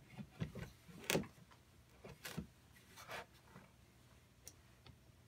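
A few faint knocks and clicks from the hand-built air engine's metal cylinder parts and wooden base being handled; the loudest knock comes about a second in. No steady hiss or running rhythm: the engine is not running.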